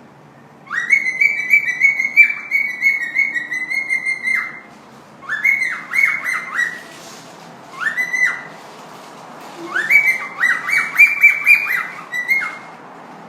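A parrot whistling in bursts of short, clear notes, each sliding up to the same high pitch. There are four runs with pauses between, the first the longest.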